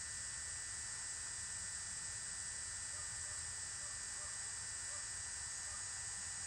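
Quiet, steady high hiss of outdoor background, with a faint steady high tone and a few faint short chirps.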